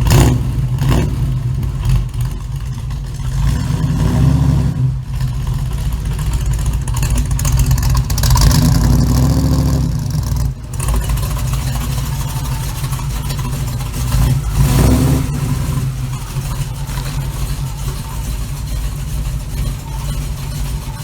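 Small-block Chevy 350 V8 in a 1936 Chevy coupe running steadily, revving up three times: about four seconds in, from about eight to ten seconds, and about fifteen seconds in.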